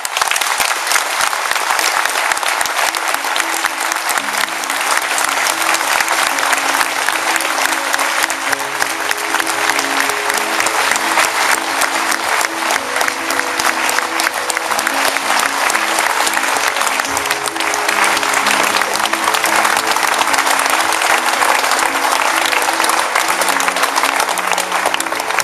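Large audience applauding, a dense steady clapping that breaks out all at once at the close of a speech, with music coming in underneath about four seconds in.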